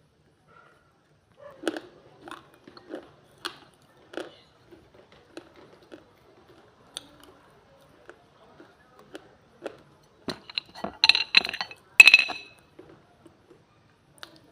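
Dry baked clay being bitten and chewed: irregular crisp crunches close to the mouth. About ten seconds in comes a louder run of sharp, brittle snaps with a slight glassy ring, the loudest near twelve seconds.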